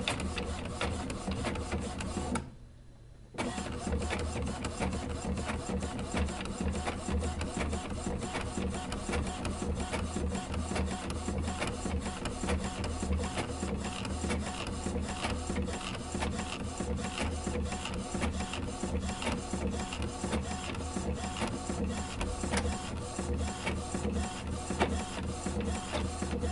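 A small machine running with a steady hum and rapid, even clicking; it drops out briefly about two and a half seconds in, then runs on.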